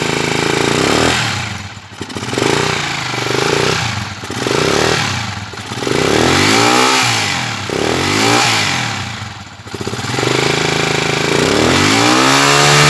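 Honda TMX155's single-cylinder four-stroke engine being revved up and down several times, its pitch rising and falling with each blip and held higher near the end. The revving is meant to test the charging output of the newly full-wave-converted stator on a low battery.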